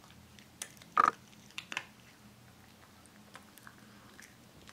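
A Norfolk terrier crunching dry kibble: four short, sharp crunches in the first two seconds, the loudest about a second in.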